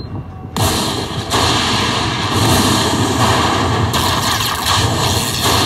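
Loud, dense rumbling din of slot machines and a busy casino floor, with a brief drop in level at the very start.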